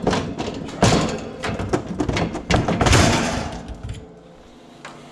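A run of knocks, bangs and clattering as a refrigerator part is worked and pulled loose by hand, dying down about four seconds in.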